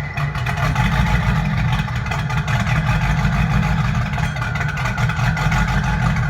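Vehicle engine running steadily with a heavy low rumble, a faint thin whine coming in about two-thirds of the way through; the sound cuts off abruptly at the end.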